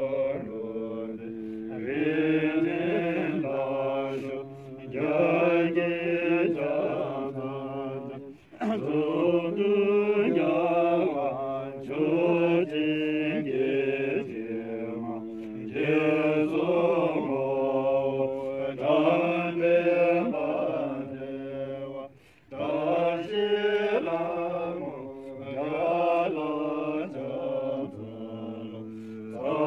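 Tibetan Buddhist monks chanting prayers from a text, a sustained melodic recitation that steps between held pitches, with two short breaks about a third of the way in and again near three quarters.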